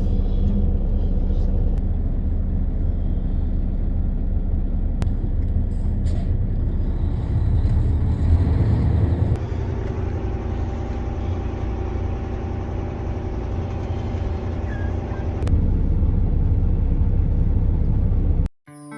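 Vehicle engine running with steady low road rumble while driving a rough woods track; the engine note changes about nine seconds in and again a few seconds later, then the sound cuts off abruptly near the end.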